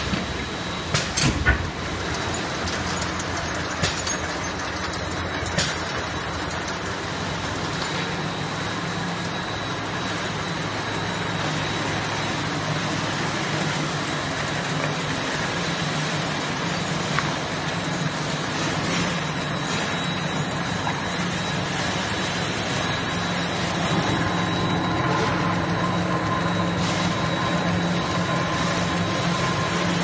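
Automatic filling and capping line for viscous liquid running: a steady machine hum with a few sharp clacks in the first six seconds, growing a little louder with a faint whine added about 24 seconds in.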